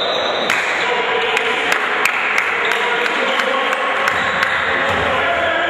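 A run of sharp, evenly spaced knocks, about three a second, over the steady background noise of a basketball gym.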